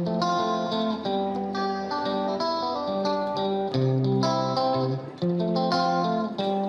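Background music: a plucked guitar playing a quick melody over chords, with sharp note attacks and no singing.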